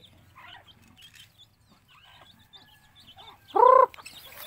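Chickens calling softly in short scattered notes, then one loud, brief call that rises and falls in pitch about three and a half seconds in.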